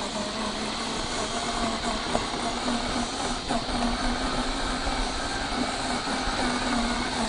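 1/6-scale FMS Jimny LJ1 RC car driving over a dirt trail: its electric motor and gear drivetrain whine steadily, over the noise of its tyres on loose dirt.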